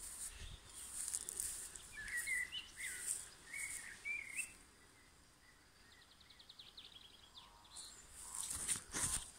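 Garden ambience with small birds chirping in short calls about two to four seconds in, followed by a brief rapid trill. Near the end comes a louder rustle of leaves brushing against the phone.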